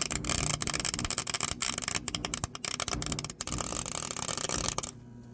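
Gasless flux-core wire welder's arc crackling and spitting irregularly while welding a lawnmower transaxle's differential gears solid. It stops suddenly near the end.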